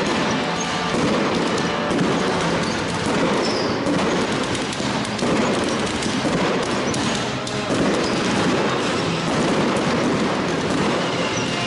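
Fireworks going off in a dense, continuous barrage: a rapid, unbroken stream of crackles, pops and bangs from ground fountains and bursting aerial shells.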